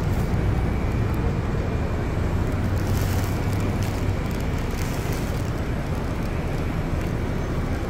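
Street traffic: a steady low rumble of car engines idling and passing, with no distinct events.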